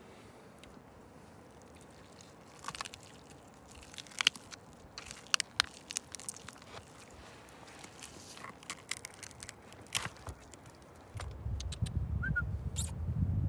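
Knife carving a roasted leg of lamb, with scattered crisp crunches and clicks as the crusted meat is cut and pulled from the bone. A low rumble comes in near the end.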